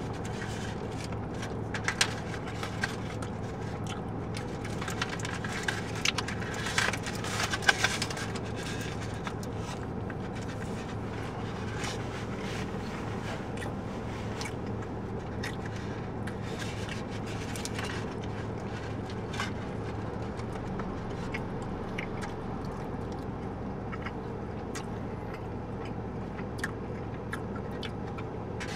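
Aluminium foil wrapper crinkling and a burrito being bitten and chewed, with clusters of short rustles and clicks in the first eight seconds or so and a few scattered ones later. Under it runs a steady low hum from the car cabin.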